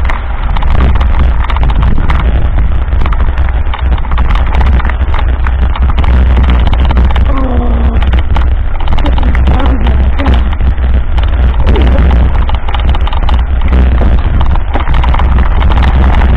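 Heavy wind buffeting on a bike-mounted camera's microphone, with constant rattling and clatter as the mountain bike rolls over a rough, rutted dirt road.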